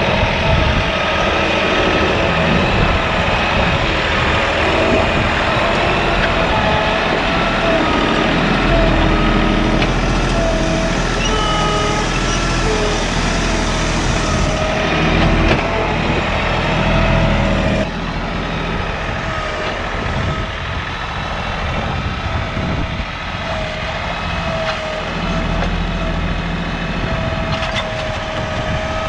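Tractor engine running continuously while working, its pitch wavering slightly; it gets quieter about eighteen seconds in.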